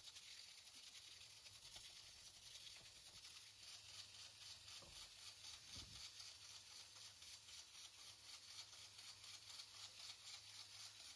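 Wire whisk beating thick chocolate cake batter in a glass bowl: faint, rhythmic wet swishing at about three strokes a second.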